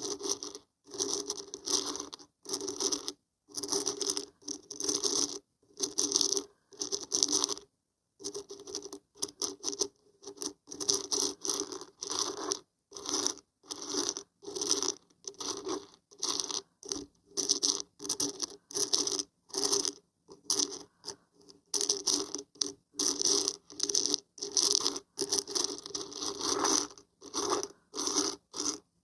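Dried beans and barberries being shaken in short rattling bursts with brief silences between, about one shake a second at first and nearer two a second after the first several seconds.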